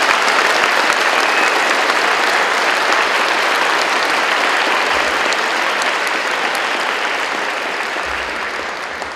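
Large crowd applauding steadily, a dense wash of clapping that tapers off near the end.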